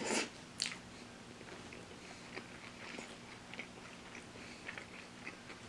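Biting into a piece of fried chicken, two sharp bites in the first second, then steady chewing with small clicks.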